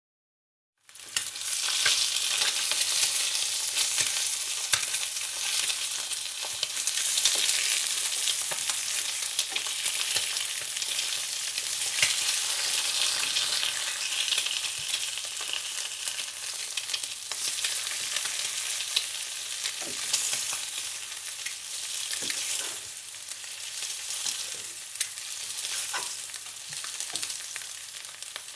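Food frying in hot oil: a steady, dense sizzle speckled with small crackles and pops, starting about a second in.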